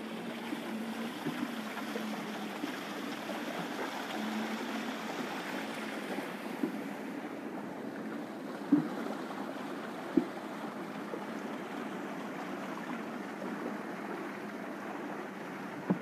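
Water rushing and splashing steadily along the hull of a moving wooden boat. Two sharp slaps or knocks come about halfway through, a second and a half apart.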